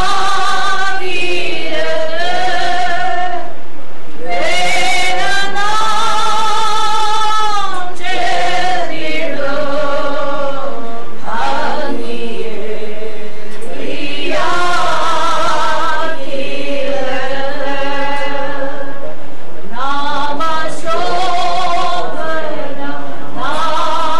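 A group of voices singing a slow funeral hymn together without instruments, in long drawn-out phrases with held notes and short pauses for breath.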